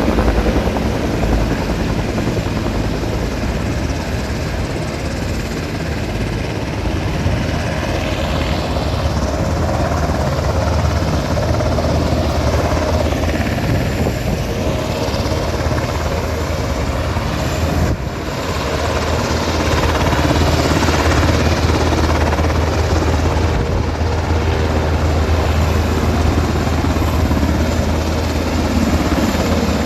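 Rescue helicopter's rotor and engine running loud and steady, with a brief dip in level about eighteen seconds in.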